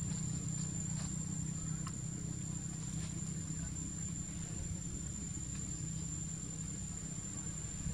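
Steady high-pitched drone of insects over a low, steady outdoor rumble, with a few faint ticks.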